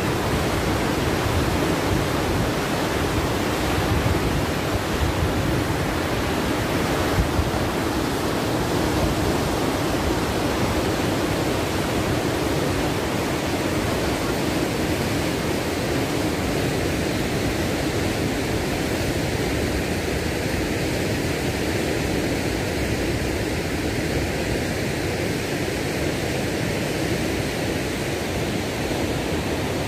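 Steady rush of water pouring over an overflowing dam spillway into churning whitewater, with the current running strong and the water high.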